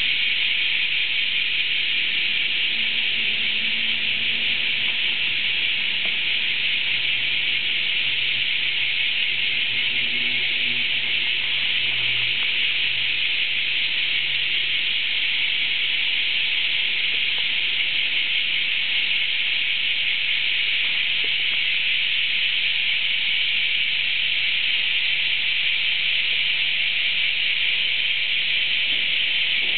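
A dense chorus of many cicadas, a steady, unbroken, high-pitched shrill at an even level.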